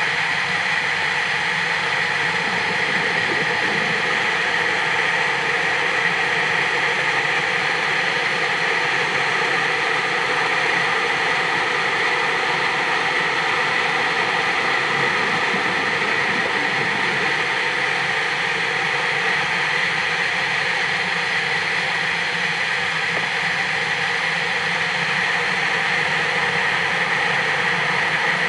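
Steady underwater noise: an even hiss with a low hum beneath it, unchanging throughout, with no breaths, knocks or other distinct events.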